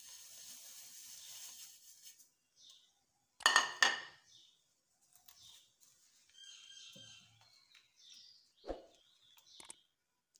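Dry vermicelli pours from a steel bowl into a pan of boiling milk with a soft rustling hiss. About three and a half seconds in there is a loud, ringing clink of the dish. Quieter stirring and scraping noises from a silicone spatula follow, with a short knock near the end.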